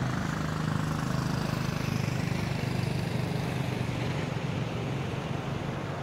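An engine running steadily at a constant speed, a low even hum.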